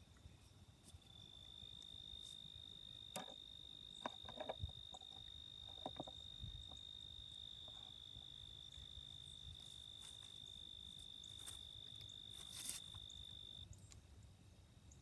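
Near silence, with a faint steady high-pitched insect trill that stops shortly before the end, and a few soft clicks.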